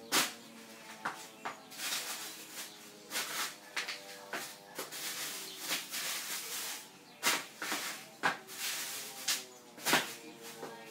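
Ice cubes in a sealed plastic bag being crushed underfoot: irregular sharp crunches and crackles, over faint music.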